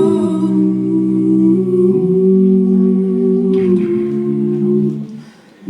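A cappella vocal group singing sustained harmony chords without words, the chord changing about two seconds in and again near four seconds, with a brief break just before the end.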